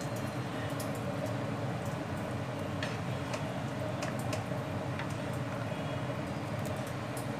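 A ladle stirring thick, simmering kadhi in a non-stick kadai, with a few soft clicks about three to four seconds in, over a steady low rumble.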